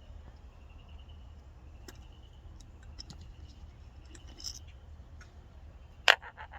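Small metal carburetor parts and hand tools clicking and clinking on a workbench during disassembly, with scattered light ticks. About six seconds in there is one sharp clack, followed by a quick run of fainter rattling clicks.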